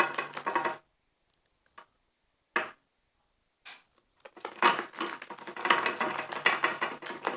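Clear slime being stirred with a utensil in a bowl as it activates: sticky crackling and clicking. It stops about a second in, leaving a few single clicks, and picks up again about four seconds in.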